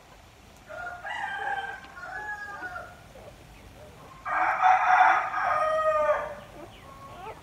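A rooster crowing twice: a first crow about a second in, then a louder, drawn-out crow of about two seconds that drops in pitch at its end.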